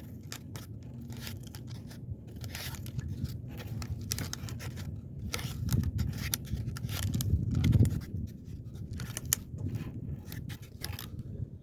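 Irregular scraping and clicking as a jug-fishing line is hauled in by hand from a kayak against a pulling fish. A low rumble swells about three quarters of the way through.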